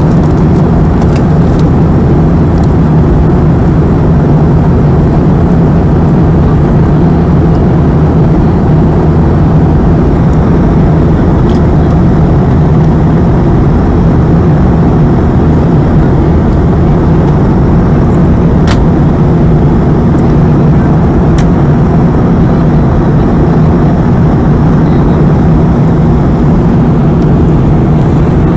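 Steady, loud cabin drone of a Boeing 717 in flight: its tail-mounted Rolls-Royce BR715 turbofans and the rush of air past the fuselage, with a steady low hum underneath.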